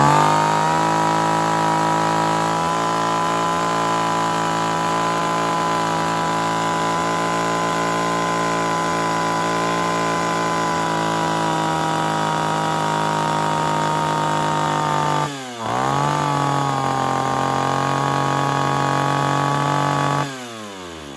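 Echo 331EVL 33.4 cc two-stroke chainsaw held at high revs with the chain running, a steady note. About 15 s in it is briefly let off and revved up again, and near the end the throttle is released and the engine falls back. It is being run to check that the chain oiler throws bar oil.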